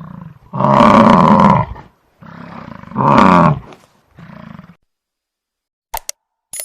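Buffalo bellowing: two loud, drawn-out calls of about a second each, with softer, shorter calls before, between and after them. A sharp click comes near the end.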